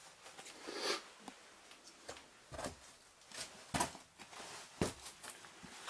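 Scattered scuffs, rustles and a few sharp knocks of a person moving over rock and handling gear in a small, wet sandstone cave.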